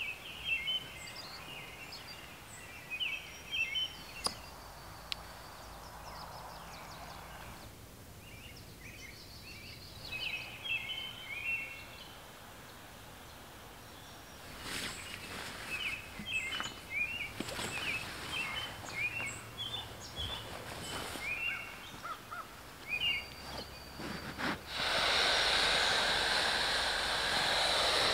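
Songbirds singing in repeated short chirpy phrases. Near the end a loud steady hiss of air starts as an inflated air mattress is pressed down and deflated.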